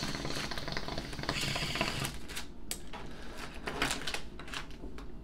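Water bong bubbling as smoke is drawn through it: a rapid, fine rattling that stops about two seconds in, followed by a few soft clicks.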